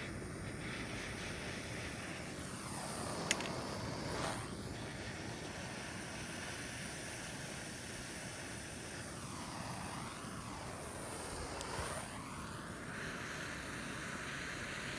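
Handheld propane torch burning with a steady hiss as its flame is held on a pile of powdered fuel mixture, the tone swelling and dipping as the torch moves. A single sharp click about three seconds in.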